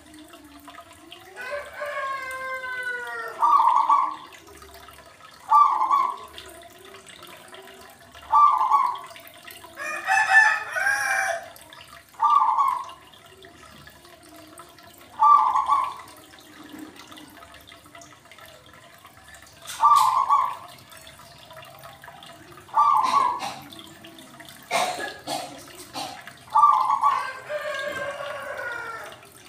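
Fowl calling: short calls every two to three seconds, with two longer drawn-out calls falling in pitch, one near the start and one near the end. A faint trickle of water runs underneath.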